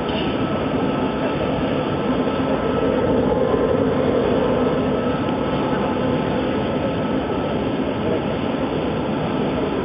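Smokeless screen-burning furnace running: a steady, even rush of burner and blower noise with a faint hum, swelling slightly in the middle.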